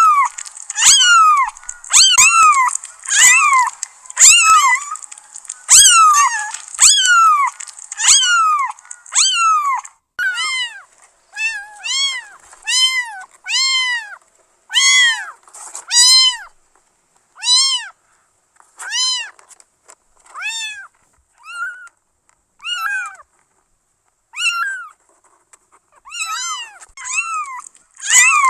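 Young kittens mewing over and over, high-pitched calls about one a second. For the first ten seconds or so each mew falls in pitch; after that the mews rise and then fall.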